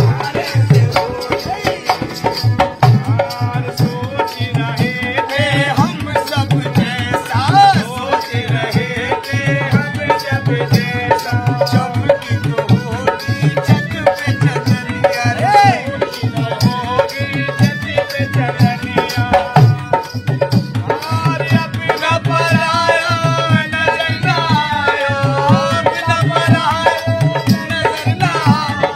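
Dholak and harmonium playing a lively Indian folk tune together, with a fast, steady drum beat under the harmonium's melody.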